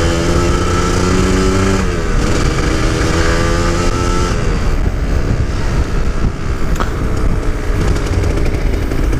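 Two-stroke Kawasaki Ninja 150 RR on its stock exhaust being ridden and accelerating through the gears, still not fully warmed up. The engine note climbs, drops sharply at a gear change about two seconds in, climbs again, then falls away about four seconds in.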